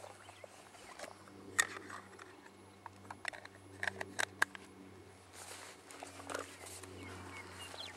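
A low steady hum with scattered sharp clicks and taps, loudest a little after a second and again around three to four and a half seconds in, and a few short chirps near the end.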